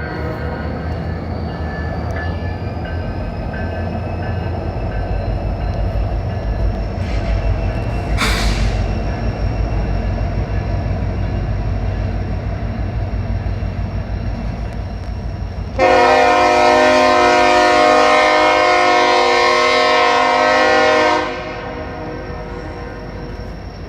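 Two CN diesel freight locomotives rumble past steadily. About two-thirds of the way through, a single loud horn blast holds steady for about five seconds, then cuts off.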